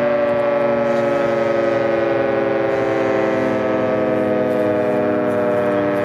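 Federal Signal 2T22 dual-tone rotating outdoor warning siren sounding a steady alert tone, its pitch sagging slightly over these seconds.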